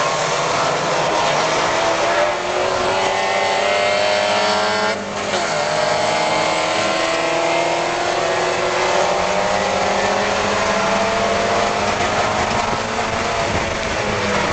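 Spec Miata race car's four-cylinder engine at full throttle, heard from inside the car. Its pitch climbs, drops briefly with an upshift about five seconds in, then climbs slowly again in the higher gear.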